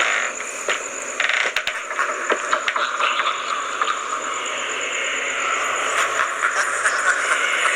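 Rapid clicking, rattling and scraping from a horror film's soundtrack. It grows denser and a little louder towards the end, over a faint steady high tone.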